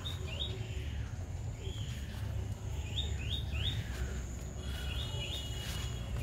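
Small birds chirping, short chirps in quick runs of two or three, over a steady low rumble.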